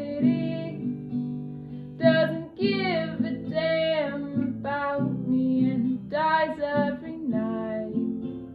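Acoustic guitar being strummed under a woman singing drawn-out, wordless or unclear notes that bend in pitch.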